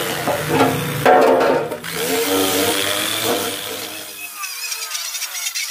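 Angle grinder spinning a small abrasive wheel against a rusty steel saw guard, grinding off rust and paint, its motor pitch wavering as the pressure changes. A little over four seconds in the grinding cuts off abruptly and a thinner, higher sound without any low end takes over.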